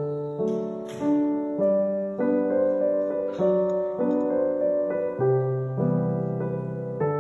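Background piano music: a gentle melody over held chords, with notes changing every half second or so.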